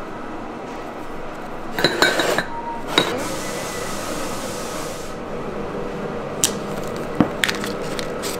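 Glazed earthenware pots and lids clinking sharply against each other as they are handled, twice around two to three seconds in, followed by a hiss lasting about two seconds and a few light knocks near the end, over a steady factory hum.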